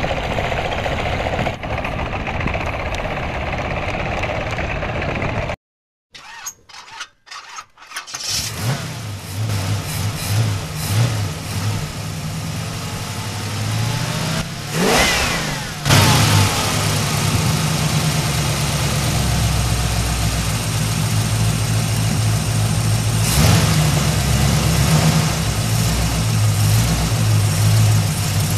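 An engine running steadily, cut off by an edit, followed by a few clicks and knocks. Then an engine starts and runs on with a steady low pulse, with a sweep in pitch about halfway through.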